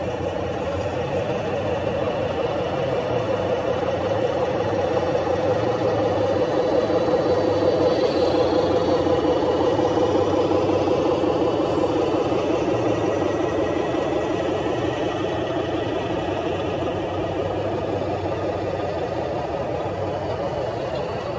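Remote-control construction models running, giving a steady mechanical drone of motors and drives. It swells a little in the middle and then eases.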